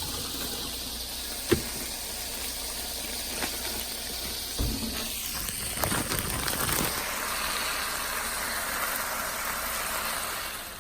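Chicken and green beans sizzling and steaming in a hot frying pan, the sizzle swelling in the second half, with a few sharp clicks.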